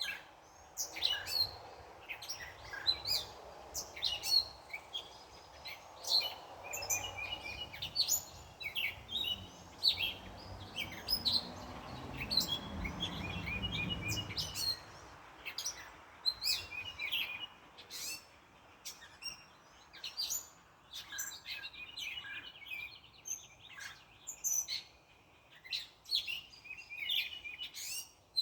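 Backyard birds chirping and trilling in many short, repeated high notes. Halfway through, a passing car rises in a low rumble and then drops away.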